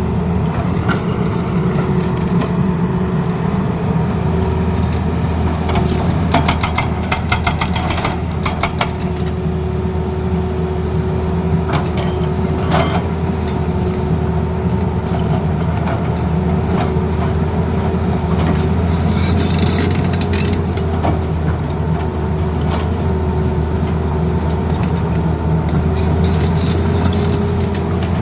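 Tata Hitachi excavator's diesel engine running steadily with a steady whine over it, and a run of rapid, evenly spaced clicks about six to nine seconds in.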